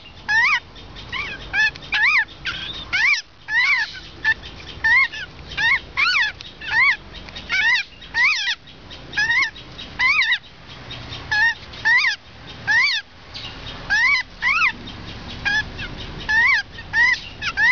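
Young white-crested laughingthrushes calling over and over: short arched notes that rise and fall in pitch, about two a second, with brief pauses.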